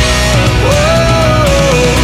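Background rock music with a melody line that rises, holds, then slides down.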